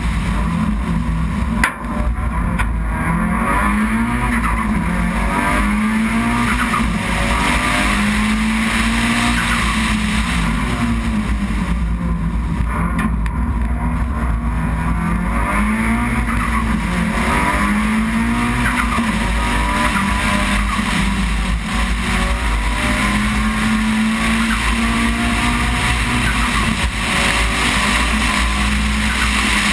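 Race car engine running hard on a mountain hill climb, its note climbing and falling every few seconds as it accelerates out of and slows into the bends. Steady wind and road noise run beneath it, and a sharp knock comes about two seconds in.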